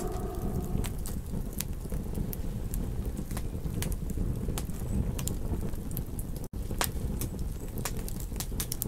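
Campfire crackling, with irregular sharp pops over a steady low rumble. The tail of a wolf howl dies away in the first second, and the sound cuts out for an instant about six and a half seconds in.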